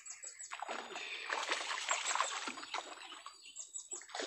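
Water splashing and sloshing: a continuous run of irregular splashes in shallow swamp water, starting abruptly.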